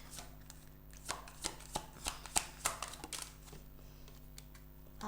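Tarot cards being shuffled by hand: a quick run of crisp card slaps and flicks, most of them bunched between one and three seconds in.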